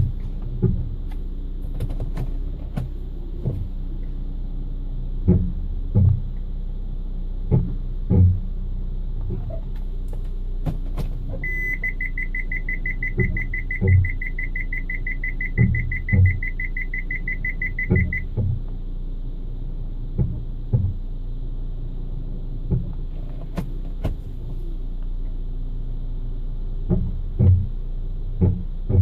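Hyundai ix35 brake noise: short low knocks or groans every second or two over a steady low rumble. About a third of the way in, a rapid high-pitched electronic beeping runs for about six seconds.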